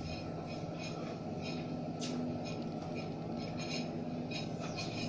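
Faint light clinks and knocks from a cup and plate being handled as a person gets up and moves off, over a steady low hum.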